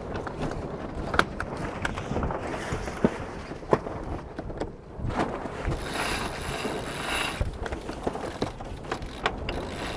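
Genoa sheet winch being cranked in during a tack: irregular ratcheting clicks and knocks of the winch, lines and deck gear, with a rushing hiss for a second or so about six seconds in.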